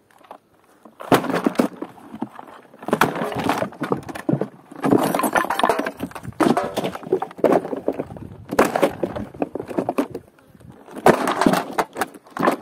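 Broken old accordions, their wooden cases and metal reed plates, being dropped and tossed onto a heap of dump debris: a series of clattering, crunching crashes with short gaps, about every two seconds.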